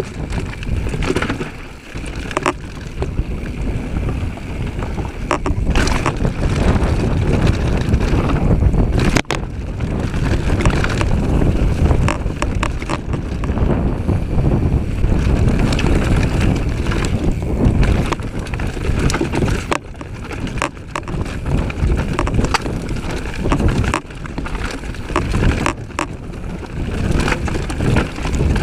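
Mountain bike descending a dirt trail at speed: wind noise on the microphone over the rumble of tyres on dirt, with frequent knocks and rattles from the bike as it hits bumps.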